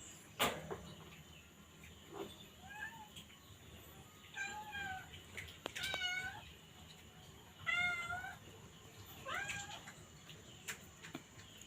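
A cat meowing repeatedly, about five meows a second or two apart, with a sharp knock just after the start and a few light clicks.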